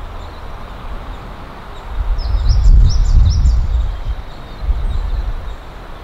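Wind buffeting the microphone in gusts, loudest from about two to four seconds in. A bird gives a quick run of about five high chirps in the middle of the loudest gust.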